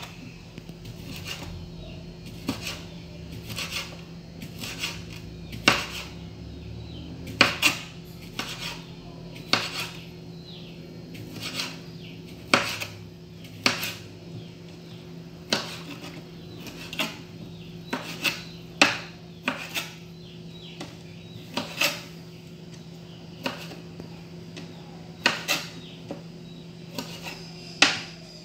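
Kitchen knife slicing smoked calabresa sausage on a cutting board: a sharp knock each time the blade hits the board, at an irregular pace of about one a second, over a steady low hum.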